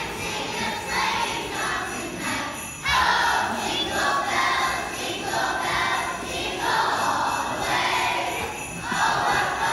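Children's choir singing a Christmas song in phrases about a second long, with jingle bells ringing along.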